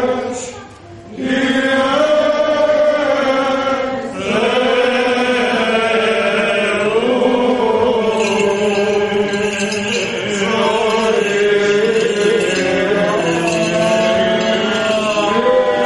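Greek Orthodox Byzantine chant of the vespers service: voices chant a continuous, held and wavering melody, pausing briefly about a second in and dipping again around four seconds.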